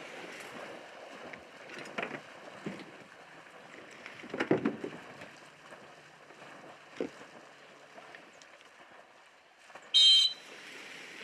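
A dog whistle blown once near the end in a short, high-pitched blast, the loudest sound: a handler directing a retriever swimming out on a water retrieve. Before it, faint rustling with a few soft knocks.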